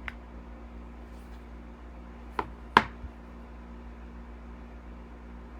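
Two sharp clicks, the second louder, about two and a half seconds in, from equipment being handled after a power cord was bumped loose, over a steady low electrical hum.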